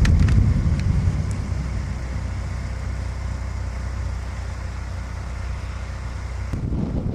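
A car's steady low engine and road rumble while driving, with a few light clicks in the first second. About six and a half seconds in, the rumble gives way to a broader rushing noise.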